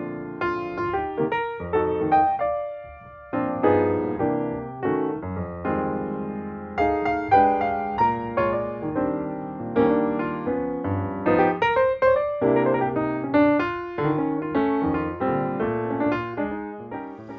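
Intro music: a solo piano tune of struck notes and chords, stopping just before the end.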